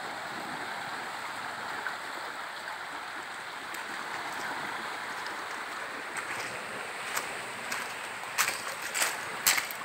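Shallow tidal water flowing and rippling over sand and stones, a steady rushing wash. A few sharp clicks come near the end.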